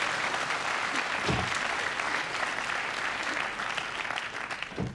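Studio audience applauding and laughing, a steady wash of clapping that eases off near the end.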